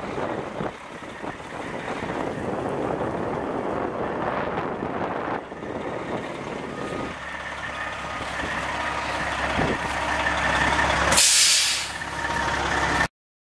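Dump truck's Detroit Diesel Series 60 inline-six diesel running, with a rough, heavier sound for the first several seconds that settles to a steadier idle about seven seconds in. Near the end comes a short, loud hiss of compressed air released from the truck's air system.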